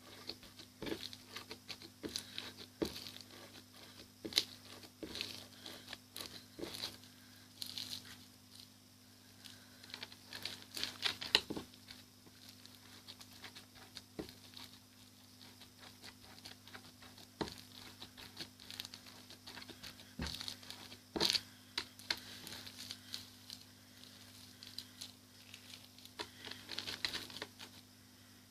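Sticky slime full of beads being kneaded and pulled by hand, giving irregular clicks, crackles and tearing sounds.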